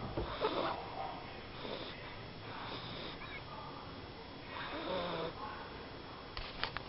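Small dog snoring in its sleep, with about four raspy breaths spaced a second or two apart. A couple of sharp clicks come near the end.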